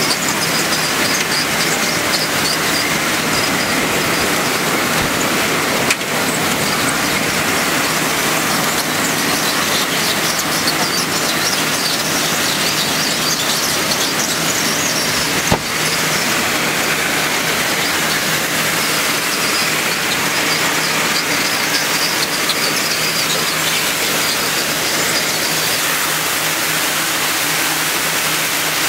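Ginger washing and peeling line running: steady machine noise from the mesh-belt conveyor and drum washer with a constant motor hum and a faint high squeal. Two brief clicks come about a third and half of the way through.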